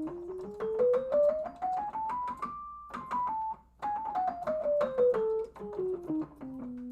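Piano running a whole-half diminished scale: single notes stepping quickly up about two octaves, a short held note at the top, then stepping back down.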